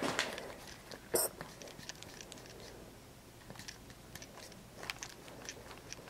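Footsteps on a debris-strewn floor: scattered light crunches and clicks, the sharpest about a second in.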